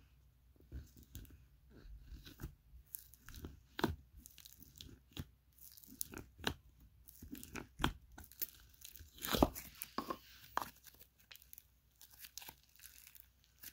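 Snow fizz slime being poked in its jar and then stretched and folded by hand, giving off irregular crunchy crackles and pops, loudest about nine seconds in.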